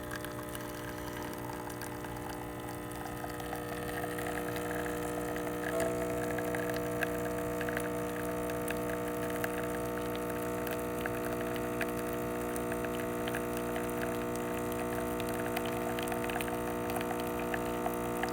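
Breville Barista Express 870XL pump humming steadily while it pulls an espresso shot, with a few faint ticks. The hum gets a little louder and shifts slightly in tone about six seconds in. It is the machine's normal brewing sound, without the loud noise that its faulty solenoid valves used to make.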